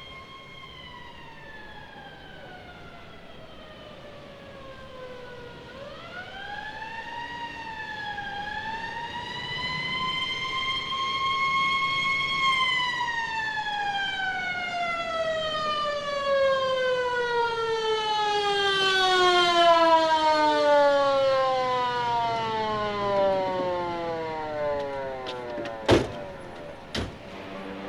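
Siren wailing: its pitch falls, rises again and wavers, then drops slowly and steadily for more than ten seconds as it winds down. Two sharp clicks come near the end.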